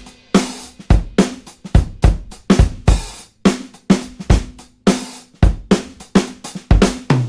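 Background music: a drum kit playing a steady beat of kick, snare and hi-hat, about three hits a second, with no other instruments.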